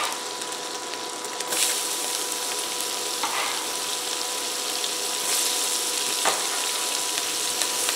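Sliced onions dropping into a hot skillet of butter and meat drippings and frying with a steady sizzle, which grows louder about a second and a half in as more onions hit the fat. A faint steady tone runs underneath, with a few light knocks of the bench scraper.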